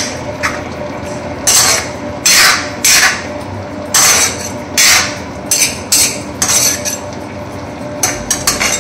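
Metal spoon scraping and knocking against an iron kadai while stirring fish pieces: about a dozen short, irregular scrapes.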